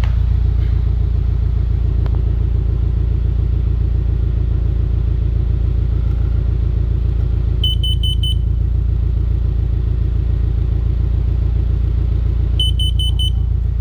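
Car engine idling steadily close by, with a carbon monoxide alarm going off over it: four quick high beeps about eight seconds in and four more near the end, the alarm having detected carbon monoxide.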